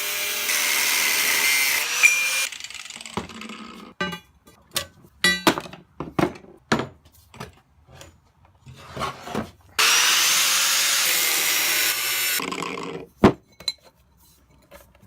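A power saw cutting in two runs of a few seconds each, with clattering knocks of handled parts between the cuts and a single sharp bang near the end.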